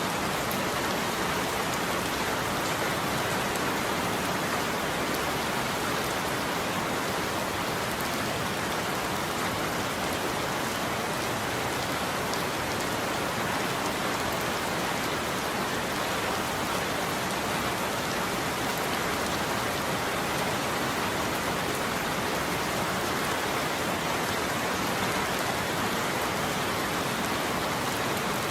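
Heavy rain falling steadily on a roof, an even hiss.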